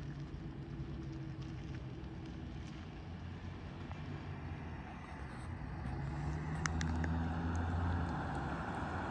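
A motor vehicle's engine running with a low steady hum. About six seconds in it grows louder, and road noise builds up with it.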